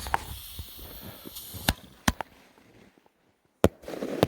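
Single-shot fireworks going off: a sharp bang about one and a half seconds in, two quick ones after it, and one more near the end.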